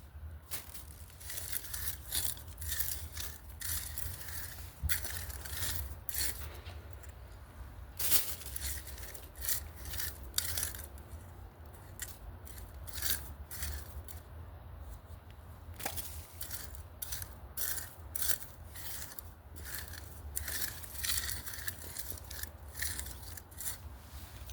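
A hand tool scraping and digging through flowerbed soil in repeated, uneven strokes, about one or two a second, over a steady low hum.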